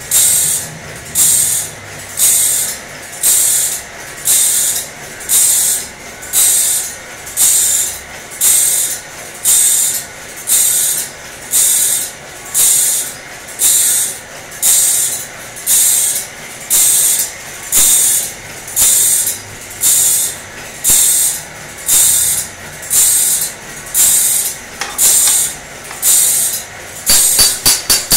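Band saw sharpening machine cycling tooth by tooth, a sharp hissing burst about once a second in a steady rhythm. Near the end the bursts come quicker and shorter.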